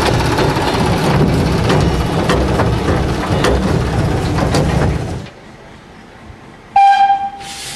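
Narrow-gauge steam locomotive heard from its own footplate on the move: a dense mechanical clatter of quick clicks over a low rumble. This cuts off about five seconds in, then a steam whistle gives one short blast, and steam starts to hiss near the end.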